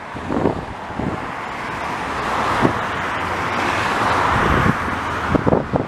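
Highway traffic passing close by, tyre and engine noise swelling as a vehicle goes past about four seconds in.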